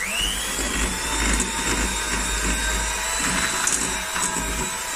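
Ottimo electric hand mixer switched on with a quick rising whine, then running steadily as its beaters cream butter and sugar in a glass bowl.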